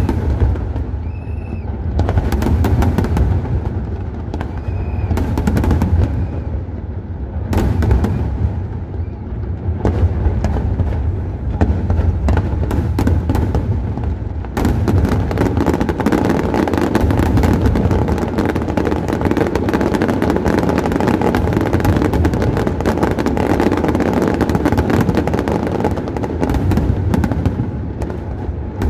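Fireworks display: aerial shells bursting overhead, with separate booms and crackles at first. About halfway in this gives way to a dense, almost continuous barrage of rapid bangs and crackling.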